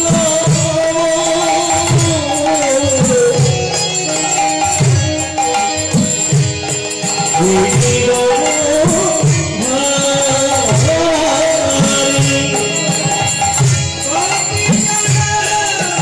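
Srikhol, the Bengali clay barrel drum, played in a kirtan rhythm, its deep strokes bending in pitch, under devotional singing of a bandana kirtan.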